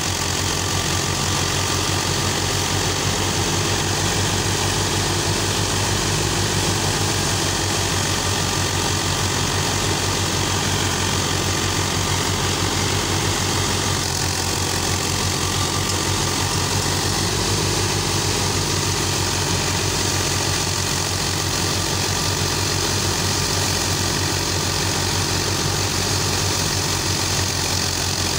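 New Holland Al-Ghazi 65 HP tractor engine running steadily under load, driving a wheat thresher. The thresher's drum runs with it as one continuous machine noise.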